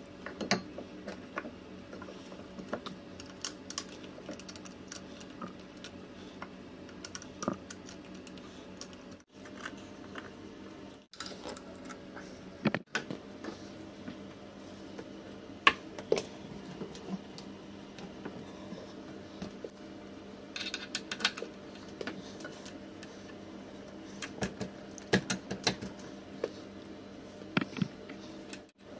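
Scattered clicks and clinks of small metal parts being handled: bolts, bracket and shock absorber of a Monorim rear suspension kit being fitted to an electric scooter. A faint steady hum runs underneath, broken by a few brief dropouts.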